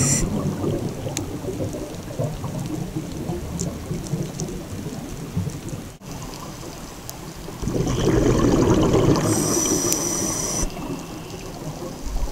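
Scuba regulator breathing heard underwater: a low bubbling rumble, louder from about eight seconds in, with a hissing breath through the regulator for about a second near the end.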